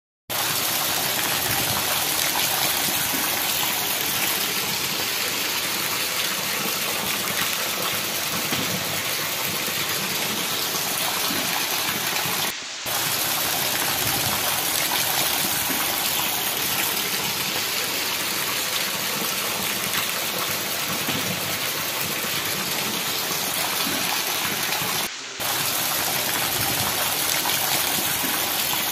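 Heavy rain pouring down on a wet street, with rainwater running over the ground: a steady rushing hiss that drops out briefly twice.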